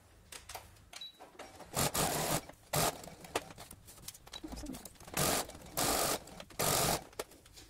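Brother CS6000i sewing machine with a walking foot stitching a seam in about five short bursts, each about half a second long, with small clicks between them.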